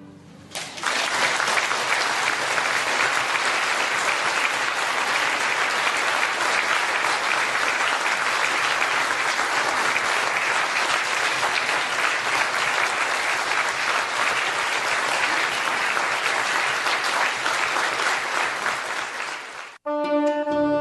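Large audience applauding steadily after an orchestral piece. The applause cuts off abruptly about a second before the end, where music begins.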